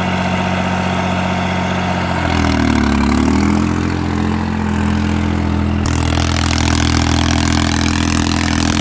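New Holland 3630 tractor's three-cylinder diesel engine running steadily under load as it pulls a disc harrow in first gear. Its speed dips briefly about two seconds in and picks back up.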